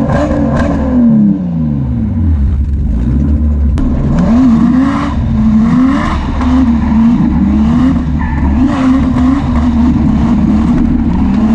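Nissan Skyline R33 GTS-t's turbocharged straight-six revving hard, its pitch climbing and dropping over and over, with one long fall in revs in the first couple of seconds.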